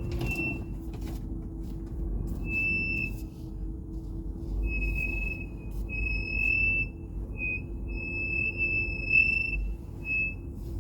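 Tesla's brakes squealing: a high-pitched squeal that comes and goes about seven times, each stretch lasting from a fraction of a second to about a second and a half. A steady low rumble runs underneath.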